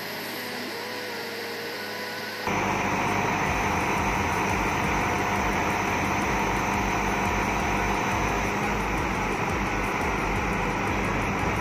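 Truck-mounted knuckle-boom crane at work on a Volvo truck: the diesel engine and hydraulics give a steady mechanical drone. It steps up abruptly and gets louder about two and a half seconds in, then holds steady while the boom telescopes in with the suspended load.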